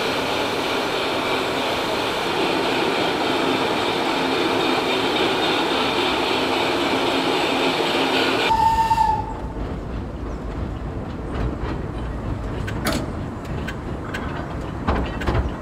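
Steady, loud rushing train noise while a model train runs on a mine diorama layout, cut off abruptly about eight and a half seconds in. A brief whistle toot follows, then the low rumble and scattered wheel clacks of a small tourist mine train rolling across a steel bridge.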